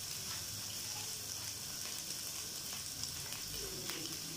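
Carrots and scrambled egg sizzling steadily in hot oil in a nonstick wok over a high flame.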